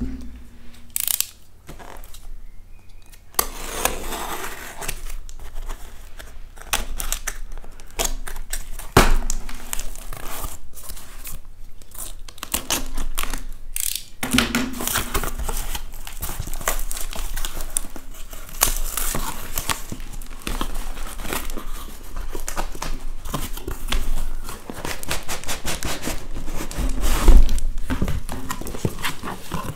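Clear plastic wrap and packing tape being torn off and crinkled as a cardboard box is opened, with irregular rustling, ripping and cardboard scrapes throughout. A heavier thump near the end.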